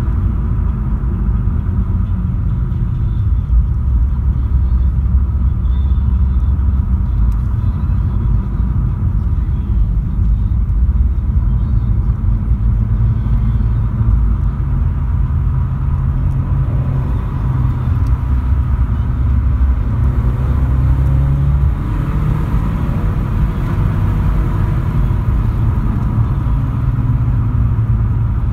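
Volkswagen Polo cruising on the open road, heard from inside the cabin: a steady, heavy low rumble of engine and tyre noise.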